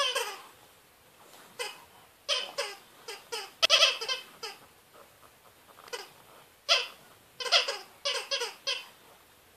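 Rubber spider dog toy squeaking under a French bulldog's chewing: runs of short squeaks, a few a second, with pauses between the runs.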